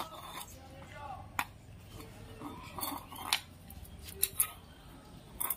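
Light aluminium bowl clinking and scraping against a cement path as a small child sets it down and handles it, several short sharp metallic clinks spread over a few seconds.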